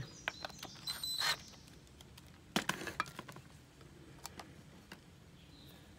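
A 19.2-volt cordless drill driving screws in two short bursts, about a second in and again past halfway, among scattered sharp clicks and clinks of the parts being handled.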